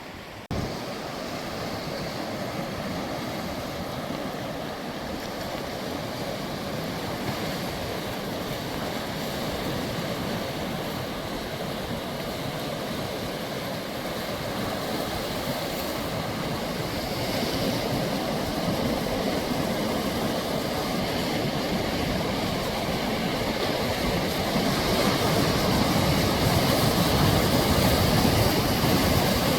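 Sea surf washing steadily on the shore, an even rushing noise that starts abruptly and grows louder toward the end, with a low rumble building under it in the second half.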